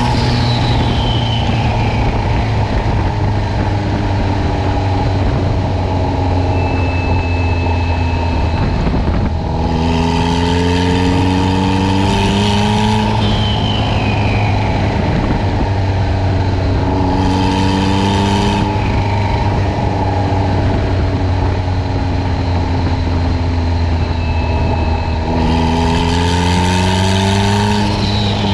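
Turbocharged Honda Civic engine pulling in three bursts of acceleration, about 10, 17 and 26 seconds in, with its pitch climbing then dropping as the throttle is lifted. A hiss rides on each pull and a turbo whistle winds down after it, which the owner calls very healthy.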